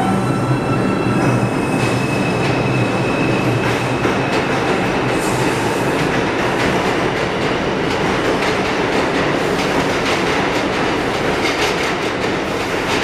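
New York City Subway 5 train cars moving along the station track: a steady rumble and rattle of wheels on the rails. A high electric motor whine fades out over the first few seconds, and a run of clicks comes near the end.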